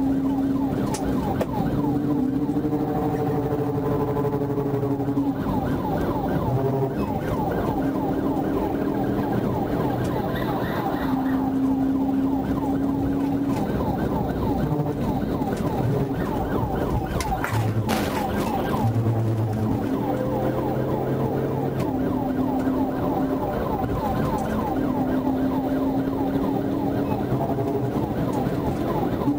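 Police siren sounding a fast, repeating rise-and-fall yelp, heard from inside the pursuing patrol car, with a steady hum of engine and road noise beneath it.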